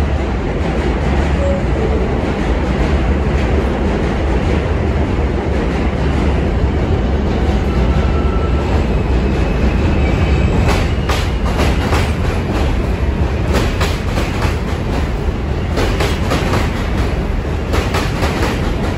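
New York City subway train running through the station with a loud steady rumble, its wheels clicking over the rail joints from about halfway through.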